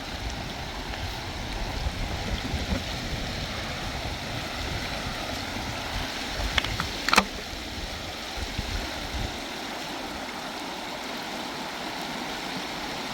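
Rushing river water, a steady hiss, with a low rumble that stops about nine seconds in and one sharp click about seven seconds in.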